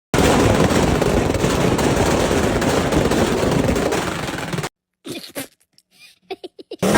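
A sports car's exhaust running loud, cutting off suddenly after about four and a half seconds, followed by a scatter of sharp exhaust pops and crackles.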